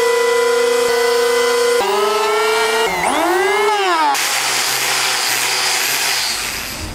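Electric hand planer running with a steady high whine, its motor pitch sagging and climbing back about three seconds in. About four seconds in this gives way abruptly to a harsher, hissing grind as an angle grinder with a sanding disc works across the wood of a tree stump.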